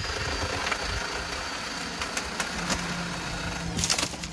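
Chainsaw running steadily as it cuts through a tree limb, then a few loud sharp cracks near the end as the limb breaks away and falls.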